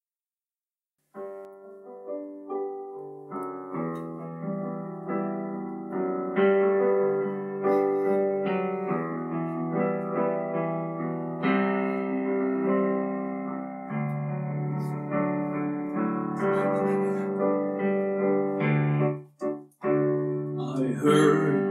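Electric keyboard playing a solo chord intro, the chords changing about once a second and getting louder about six seconds in. It breaks off briefly near the end, just as fuller sound comes in.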